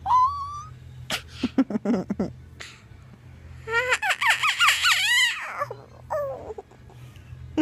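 A toddler squealing and laughing in bursts: a high squeal at the start, a run of short laughs about a second in, and a long string of high-pitched giggles about four seconds in.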